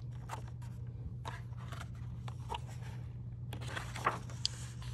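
Paper pages of a hardcover picture book being handled and turned: scattered faint rustles and taps, then a longer rustle as a page turns, about three and a half seconds in. A steady low hum runs underneath.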